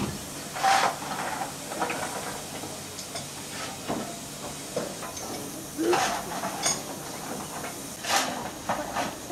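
Steam hissing steadily from a standing Bulleid Battle of Britain class Pacific steam locomotive, 34053 Sir Keith Park, leaking from around the cylinders, with a few short sharp knocks over it.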